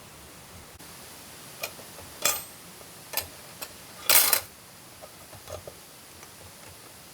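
A few separate light clicks and clinks of camp cookware being handled, the loudest a short cluster about four seconds in.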